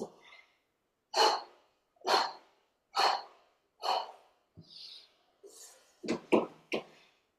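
A person coughing: four strong coughs about a second apart, then a softer breath and a quick run of three sharper coughs near the end.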